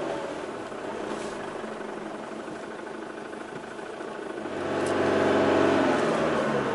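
Off-road 4x4's engine running as it drives through soft desert sand, swelling louder for a couple of seconds near the end as it revs up under load.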